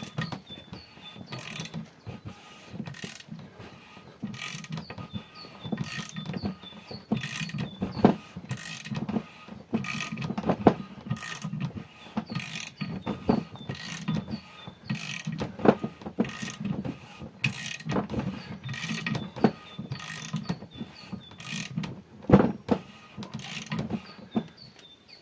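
Suzuki G13 inline-four engine block, converted into an air compressor with its crankshaft rewelded 90 degrees offset, being turned over: a low steady hum with repeated irregular mechanical clacks and knocks.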